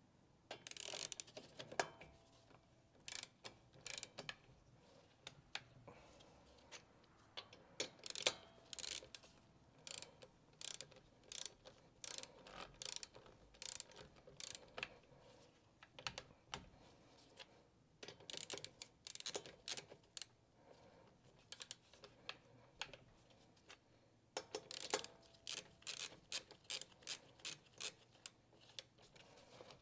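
A long series of sharp clicks, irregular and bunched into quick runs of several a second.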